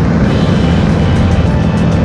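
Background music, loud and steady.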